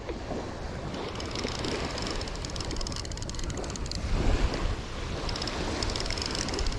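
Wind buffeting the microphone over the wash of small waves on a sandy beach, a steady rushing noise heaviest in the low rumble.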